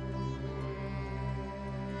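Background music: slow, sustained orchestral strings.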